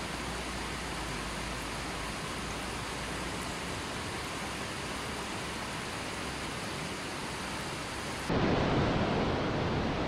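Steady rushing roar of a waterfall, an even noise of falling water. About eight seconds in it cuts abruptly to a louder, deeper rush of water.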